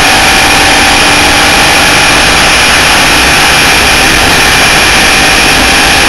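Loud, steady rush of wind noise over the onboard camera's microphone on a Class 1 desert off-road race car at speed. The car's engine is almost drowned out, with only a faint steady engine note beneath.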